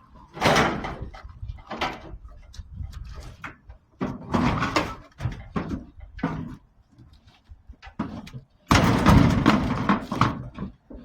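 Scrap metal being thrown and shifted on the back of a truck: a string of knocks and clatters, with a longer, louder clattering stretch about nine seconds in.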